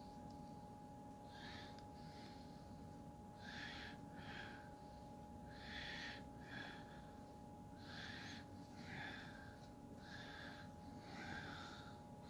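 A person breathing through the nose close to the microphone, a soft in-and-out pair every two seconds or so, over a faint steady hum.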